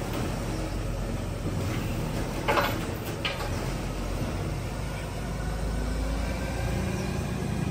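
Refuse truck's diesel engine running with a steady low rumble, with a brief sharper noise about two and a half seconds in.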